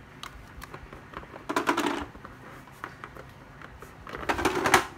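Two short bursts of rapid crackling clatter, about half a second each, one about a second and a half in and one near the end, with a few light clicks between them: hands handling hard plastic battery chargers and their tape labels.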